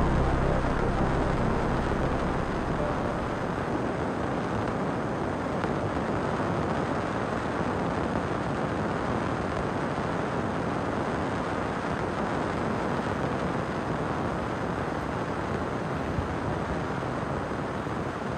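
Background music fading out over the first few seconds, leaving a steady rushing noise with no rhythm or pitch.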